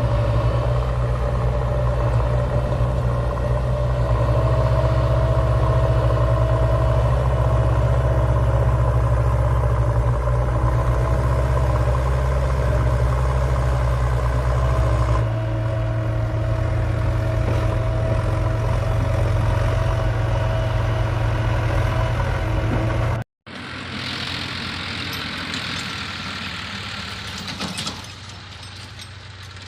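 Heavy diesel engine running steadily with a deep, even hum. Its note shifts slightly about halfway through. After an abrupt cut near the end, a quieter, hissier engine sound takes over.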